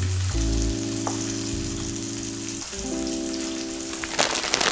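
Salmon frying in a griddle pan, a steady sizzle, under background music with held chords. Near the end a plastic bag of salad greens crinkles sharply.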